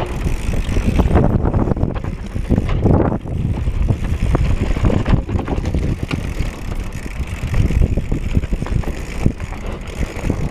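Mountain bike riding fast down a dirt trail: the tyres rumble over rough ground and the bike rattles and knocks over bumps, with wind noise on the microphone.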